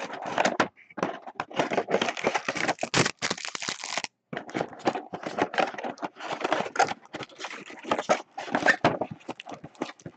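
Plastic wrapping crinkling and tearing in quick, irregular crackles as sealed boxes of trading cards are cut open, with a brief pause about four seconds in.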